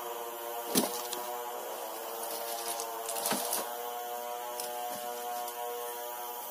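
A chainsaw idling steadily, with a few sharp knocks of freshly sawn hardwood boards being shifted.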